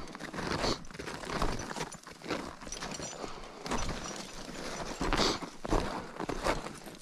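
Footsteps of crampon-clad mountaineering boots crunching on hard snow and ice, coming at an uneven pace as the climber descends.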